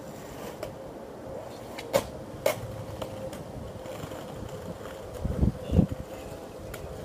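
Skateboard on a concrete plaza: two sharp clacks of the board about two seconds in, then low rumbling thuds of the wheels and deck around five to six seconds in.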